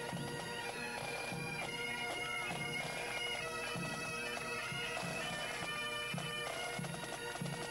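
Bagpipes playing a march tune over a steady drone, with a drum beating a regular marching rhythm.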